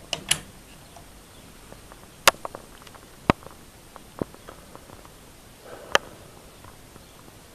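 About six sharp, separate clicks and light knocks over a faint hiss. The first two come close together as a hand turns a digital multimeter's rotary selector dial.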